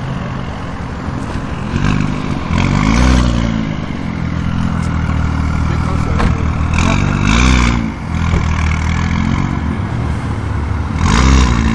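BMW M2 (F87) with an Akrapovic exhaust, its turbocharged straight-six idling and revved in short blips that rise and fall in pitch: one about 2 s in, one about 7 s in, and another starting near the end.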